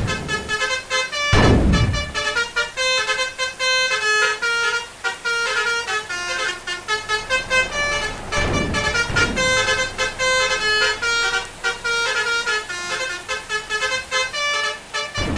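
Basuri telolet bus horns, a set of electric multi-trumpet air horns, playing a fast melody of short notes over and over. A few short bursts of rushing noise break in, about a second and a half in, around the middle, and at the end.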